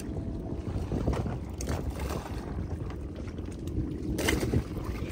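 Small boat moving on the sea: a steady low rumble of hull and water, with irregular knocks and a brief louder rush of water noise about four seconds in.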